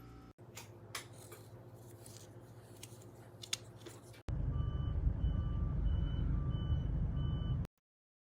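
Faint background with a few clicks, then about four seconds in a loud low rumble starts suddenly with a series of about five short electronic beeps, evenly spaced a little over half a second apart; both cut off abruptly near the end.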